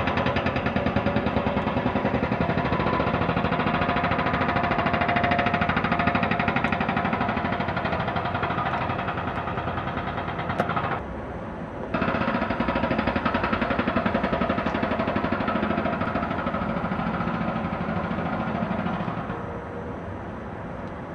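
Demolition machinery running with a fast, even knocking rhythm. It stops about eleven seconds in, starts again a second later, and drops away near the end.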